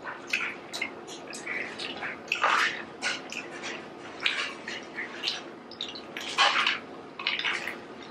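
Close-miked eating of garlic bread pizza: irregular crunches of toasted crust and wet mouth smacks as several people bite and chew, with two louder crunchy bites about two and a half and six and a half seconds in.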